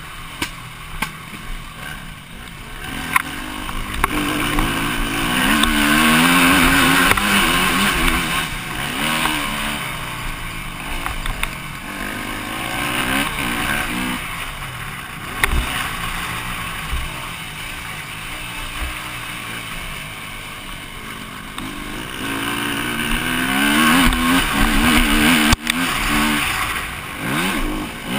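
KTM EXC-F 250 single-cylinder four-stroke dirt bike engine under riding load, its pitch climbing and dropping again and again with throttle and gear changes, with a few sharp knocks from the bike over bumps.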